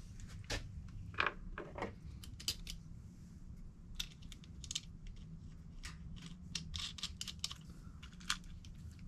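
Light clicks and ticks of hands fitting small ring-terminal wires and nuts onto battery cell terminal studs, scattered irregularly over a faint steady low hum.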